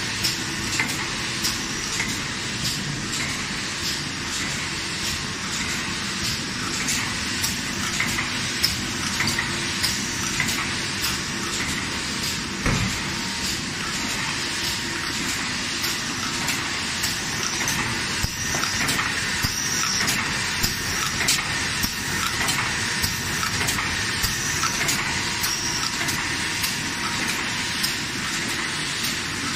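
Automatic five-colour tube screen printing machine running in production: a steady mechanical clatter with quick, regular clicks from its moving stations.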